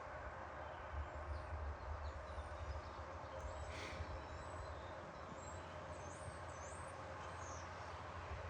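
Small birds giving faint, short high-pitched chirps several times over a steady low rumble.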